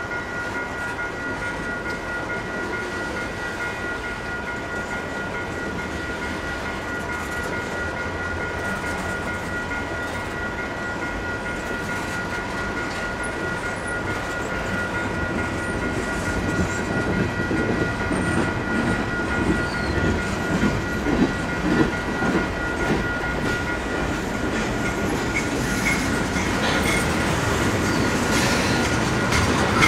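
Freight train rolling past, with wheels clattering and knocking over the rails. The clatter grows louder in the second half. A level-crossing warning bell rings steadily throughout.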